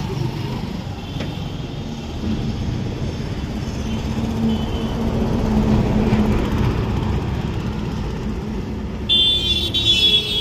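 Steady low rumble of motor vehicles running on the road, swelling a little mid-way. Near the end a shrill horn-like tone sounds for about two seconds.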